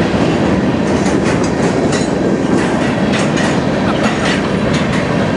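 Freight train of covered hopper cars rolling past: a steady rumble of wheels on rail, with frequent irregular clacks from the wheels.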